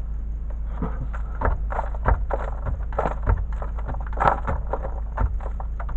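Irregular knocks and scrapes, a few a second, from a worker shifting and working on loose soil against a brick pier in a subfloor crawlspace, over a steady low rumble.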